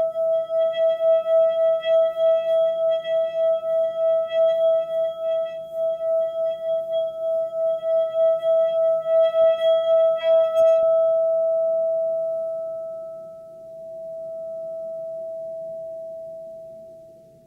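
Singing bowl rubbed around its rim, ringing one steady tone with overtones and a quick pulsing wobble. About ten seconds in, a light click, the rubbing stops and the tone rings on alone, slowly fading and swelling.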